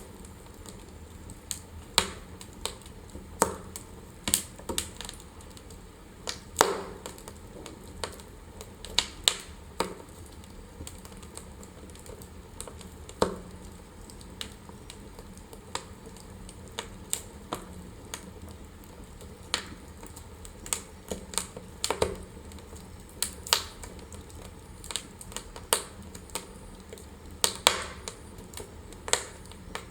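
Wood fire burning in a fireplace, crackling with irregular sharp pops and snaps over a low steady rush.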